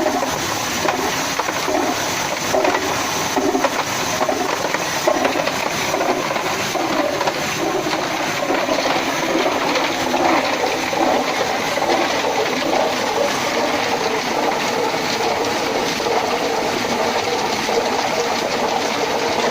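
Tube-ice machine running, with water rushing through it over a steady machine noise.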